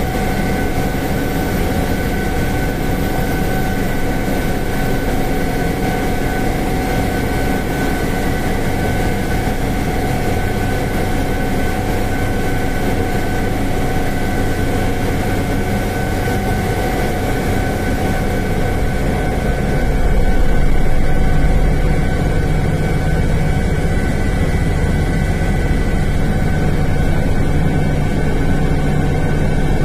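Cockpit noise of a Sikorsky S-92 helicopter during takeoff and climb: the steady whine of its twin turboshaft engines, heard as several high tones, over the low rumble of the rotor and transmission. About two-thirds of the way through, the low rumble grows louder.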